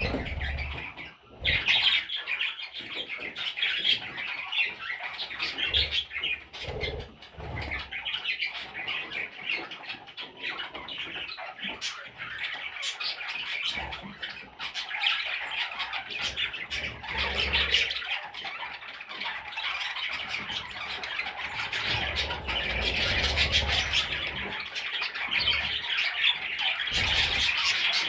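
Budgerigar chicks squawking and chirping continuously, with many overlapping calls, and scattered clicks and low thumps.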